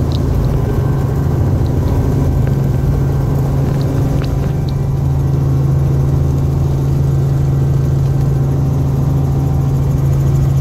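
Helicopter engine and rotor drone heard from inside the cabin: a loud, steady, low hum that does not change, as the helicopter lifts off.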